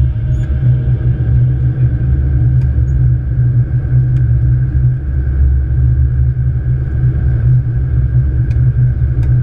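Steady low rumble of a Boeing 777-200ER flight deck in descent: airflow and engine noise heard from inside the cockpit.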